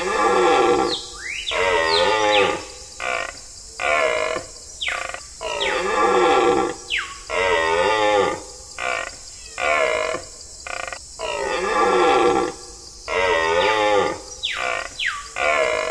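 An animal calling over and over in loud, pitched cries with a wavering pitch, each lasting about a second, with short gaps between them.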